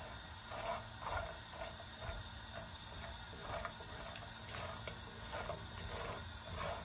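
Sliced almonds and other dry fruits frying in ghee in a nonstick wok, giving an irregular crackle and pop as they are stirred with a silicone spatula.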